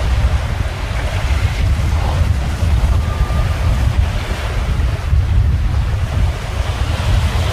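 Loud wind buffeting the microphone with a fluttering rumble, over a steady rush of water and waves along the hull of a small trailer-sailer yacht under sail.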